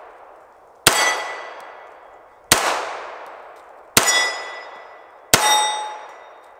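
Four shots from an HK45 .45 ACP pistol, about a second and a half apart, each followed by a long fading echo. After the fourth the slide locks back on the empty magazine.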